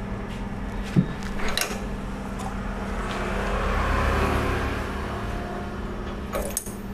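Metal clicks from a drill collet being loosened and worked out of the spindle of a turret milling machine, over a steady low hum. A broad rushing sound swells and fades in the middle, and a few more clicks come near the end.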